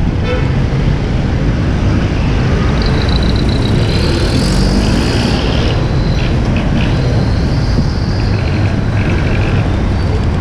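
Wind buffeting the microphone of a camera on a moving road bicycle, mixed with passing road traffic. A thin, high-pitched squeal sounds for a couple of seconds near the middle, with shorter fainter ones later.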